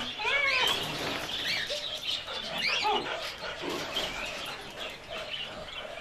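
Dog barking and yelping in short high calls, most of them in the first half.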